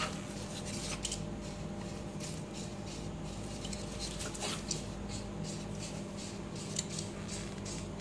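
Scattered light clicks and scrapes of a Labrador puppy's claws on a tile floor as it paws at a beetle, over a steady low hum.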